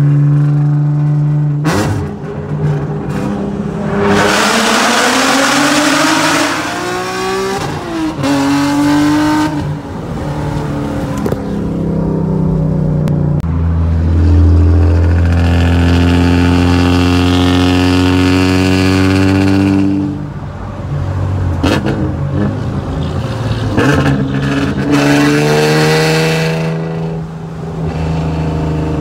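Infiniti G37S's 3.7-litre V6 with long-tube headers and a custom 3-inch straight-pipe exhaust, heard from inside the cabin, pulling hard under acceleration. The revs climb in several long rises and fall back sharply between them, with a loud, deep stretch in the middle.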